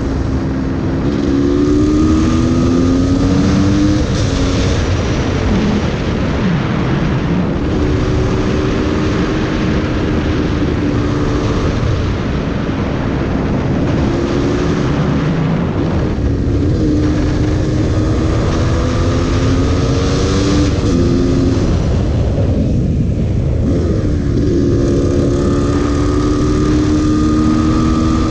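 Two-stroke engine of a GasGas EC300 supermoto being ridden hard, its note climbing under acceleration and dropping back several times as the rider shifts and eases off for the bends. Heavy wind noise rushes over the microphone.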